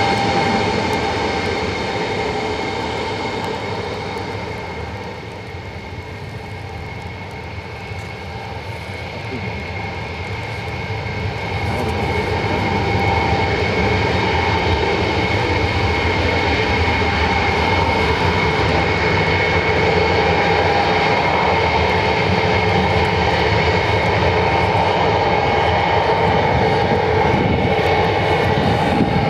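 Ilyushin Il-62M's four rear-mounted Soloviev D-30KU turbofans running at taxi power, a steady jet whine over a low rumble. It fades a little for several seconds, then grows louder from about a third of the way in as the airliner swings broadside.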